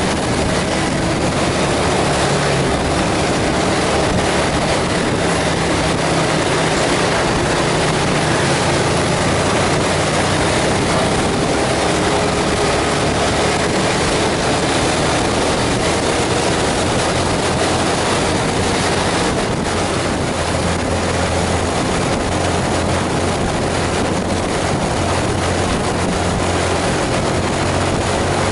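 Bus engine running steadily under load, its low hum holding pitch, over a constant hiss of tyres on a wet road and rain.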